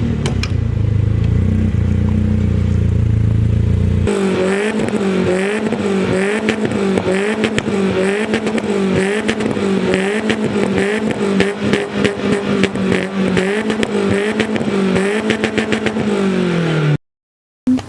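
Car engine running loudly, then held at high revs with regular dips and recoveries in pitch for about twelve seconds, the revs falling away near the end.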